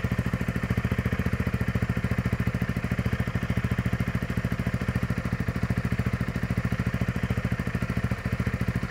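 Honda CRF300 Rally's single-cylinder four-stroke engine idling steadily through its stock exhaust: an even, rapid run of exhaust beats. The stock exhaust is really that quiet at idle.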